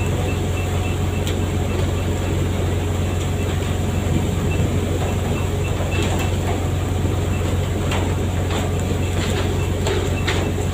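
Steady low drone of a fishing boat's engine, with scattered sharp clacks and knocks over it, most of them between about six and ten seconds in.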